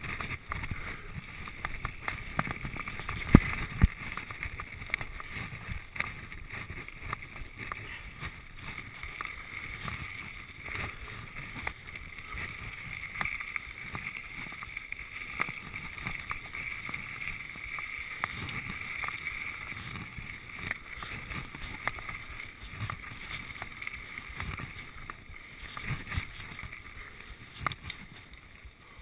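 Giant Trance 1 full-suspension mountain bike riding fast over a rough forest trail: constant tyre rumble with many small rattles and knocks from the bike. Two loud sharp knocks come about three and a half seconds in.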